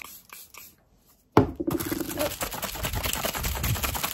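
Makeup setting spray pumped from a fine-mist bottle in quick squirts, about four a second, stopping a little under a second in. After a short hush comes a sudden, louder run of rapid clicks and rustling.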